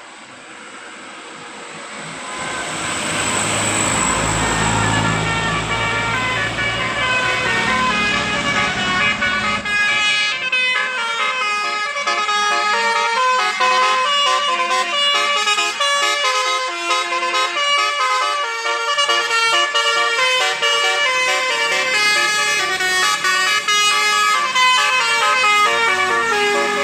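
A bus's 'telolet basuri' multi-tone musical horn playing a quick melody of stepping notes, starting about ten seconds in and running on. Before it, the bus's engine and road noise grow louder.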